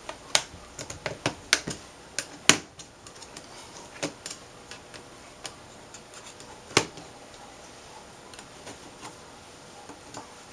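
Irregular sharp metallic clicks and taps, thickest in the first few seconds and loudest about two and a half seconds in, then sparse: a flathead screwdriver working against the clips of an LCD panel's metal frame.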